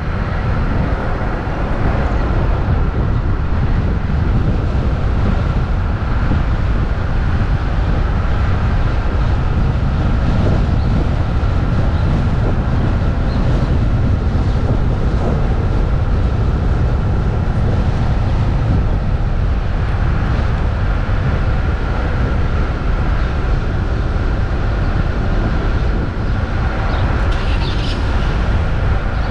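Jeep Wrangler driving slowly along a street, heard from a camera on its front hood: a steady low engine and road rumble with a faint steady whine over it.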